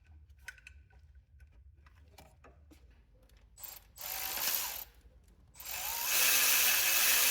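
A ratchet wrench backing out a double-nutted 12 mm stud on a Toyota 1ZZ engine. A few scattered clicks come first, then two runs of fast ratcheting: a short one about four seconds in and a longer, louder one from about six seconds.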